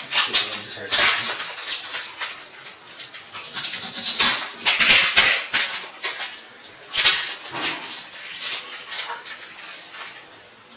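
Plastic packaging crinkling and rustling in irregular bursts as a small part is unwrapped by hand, busiest around the middle and quieter near the end.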